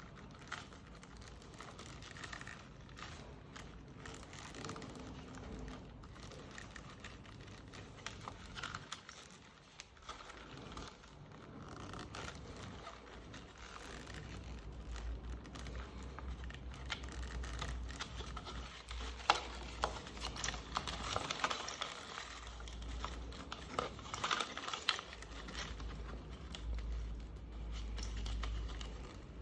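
Hand work on small motorbike parts: scattered light clicks, taps and rustling, with a few sharper clicks, and a low rumble that comes and goes in the second half.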